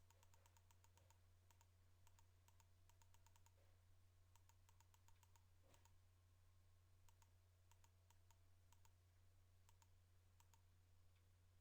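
Near silence: a steady low electrical hum with faint, quick clicks coming in little clusters.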